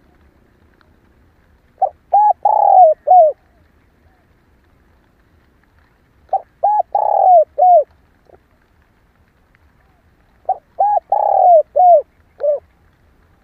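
Spotted dove (cu gáy) cooing, given as a female's call: three phrases about four seconds apart, each a quick run of four or five short coos with a longer one in the middle.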